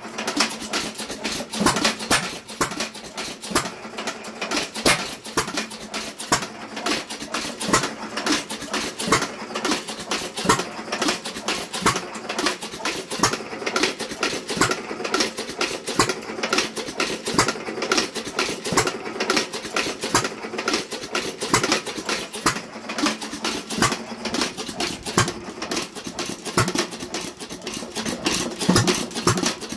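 Associated 1.75 hp air-cooled hit-and-miss engine running: a rapid, continuous clatter of clicks, with louder beats at uneven intervals every couple of seconds.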